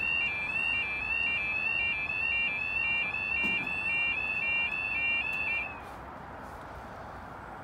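UK level crossing yodel alarm warbling back and forth between two high tones while the road barriers lower, stopping about six seconds in as the barriers come down; a brief low knock sounds a little past halfway.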